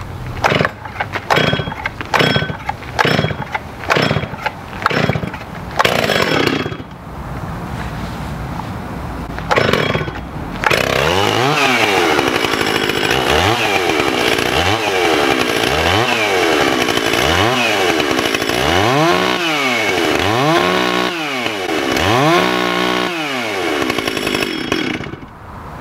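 Two-stroke Stihl chainsaw being started: a run of sharp pops for several seconds, then it catches and runs about ten seconds in. It is revved up and down about eight times, the revs getting longer and higher toward the end, and cuts off suddenly near the end.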